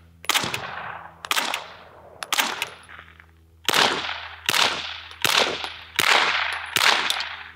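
Suppressed 9mm MP5 submachine guns fired as slow single shots about a second apart. First come the last three shots of an MP5SD with its integral suppressor, firing 115-grain supersonic rounds. After a short pause come five clearly louder shots with a longer echo from a standard MP5 with a B&T suppressor, firing 147-grain subsonic rounds.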